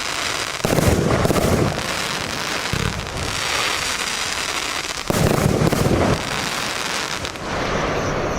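Argento "Avalanche" firework battery going off, with dense crackling throughout. Two heavier bursts with booming, each lasting about a second, come just under a second in and about five seconds in.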